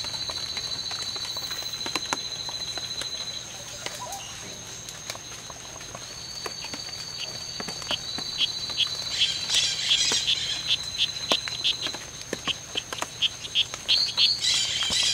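Rainforest chorus of calling frogs and insects: a steady high-pitched trill throughout. About halfway through, a run of short chirps at about three a second joins in, with two brief bursts of busier calling.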